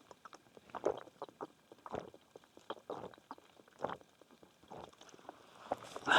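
Footsteps with small crunches and clicks between them, about one heavier step a second, and a louder bump at the very end.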